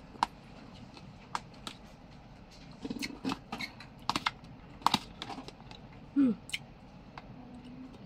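Eating sounds: a plastic spoon clicking and scraping in a takeaway bowl, with chewing and mouth clicks scattered through, and a brief falling hum from the eater about six seconds in.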